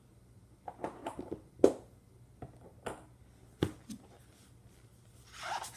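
Hard plastic toy wheels and pegboard pieces clicking and knocking as they are handled, a handful of sharp clicks with the loudest about one and a half and three and a half seconds in. Near the end, a short papery rustle as the picture book is picked up.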